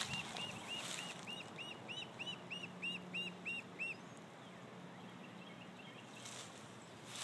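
Lone duckling peeping, a quick run of high, arched peeps about four a second that fades after about four seconds. It is the call of a duckling cut off from its brood, chirping so the others can find it.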